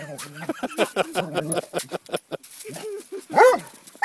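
Chocolate Labrador retriever sounding off at a fish: low grumbling and short whines over the first couple of seconds, then a single loud bark about three and a half seconds in, with another bark starting at the very end.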